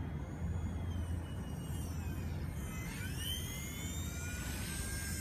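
WLtoys V911S micro RC helicopter's electric motors and rotors whining in flight, the high whine gliding up and down in pitch and growing plainer after about three seconds as the helicopter comes close, over a low steady rumble.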